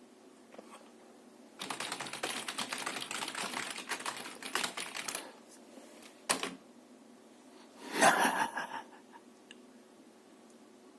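Rapid typing on a computer keyboard, a dense run of key clicks lasting about three and a half seconds, then a single sharp click, then a louder short clatter about eight seconds in.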